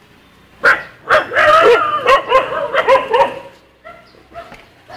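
Stray dogs barking, a quick run of loud barks starting about a second in, then a few fainter barks near the end.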